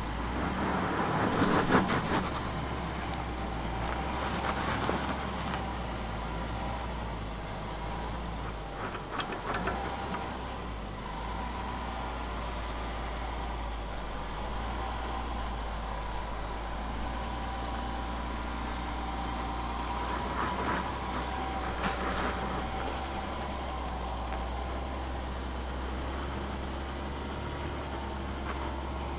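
Range Rover L405 engine running under load as the SUV crawls up a steep sandy slope, with a steady low hum and a few swells where it works harder.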